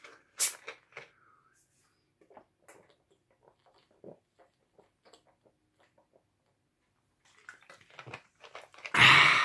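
Plastic Coca-Cola bottle cap twisted open with a short sharp fizz of escaping gas, then faint gulps and swallows as a man drinks the cola. Near the end comes a loud burp from the fizzy drink.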